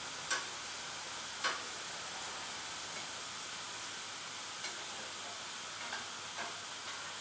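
Crêpes sizzling in hot crêpe pans, a steady high hiss, with a few light clicks of a spatula against a pan, the clearest two near the start.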